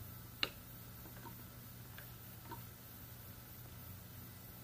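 Small metal clicks from the brake cable and brake fittings of an electric scooter being worked into place: one sharp click about half a second in, then a few faint ticks, over a low steady hum.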